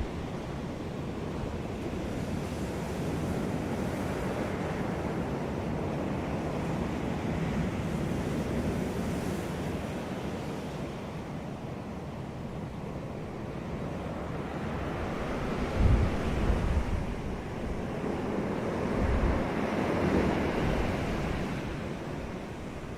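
Sea surf washing onto a beach, the waves swelling and falling away every several seconds. Wind buffets the microphone with a few low thumps about two-thirds of the way in.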